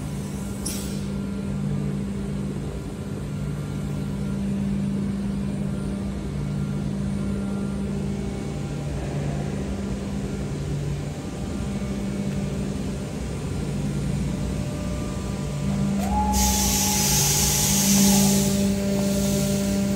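Uniteam/Biesse Extra BM3 5-axis CNC panel machining centre running: a steady low machine hum with tones that swell and fade every second or two. There is a short hiss just under a second in. About 16 seconds in a much louder rushing hiss starts and runs on, with a steady whine over it.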